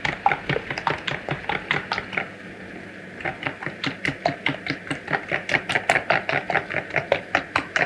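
Eggs being beaten by hand with a fork in a clear bowl: a fast run of clicks as the fork strikes the bowl, about four to five strokes a second. The strokes stop for about a second roughly two seconds in, then resume.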